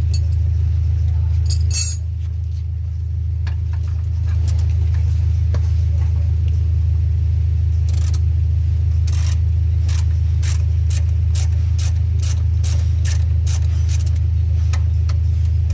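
A steady low rumble throughout. From about halfway, a socket ratchet wrench clicks in quick strokes, two or three a second, working an engine-mount bolt.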